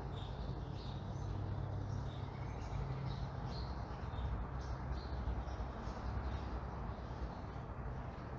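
Small birds chirping in short, scattered calls over a steady low rumble of traffic.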